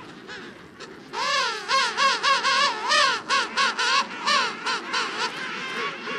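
Emperor penguin calling: a loud warbling call of rapid up-and-down pitch wavers, several notes a second, starting about a second in and lasting about four seconds. Fainter calls from other penguins in the colony can be heard behind it.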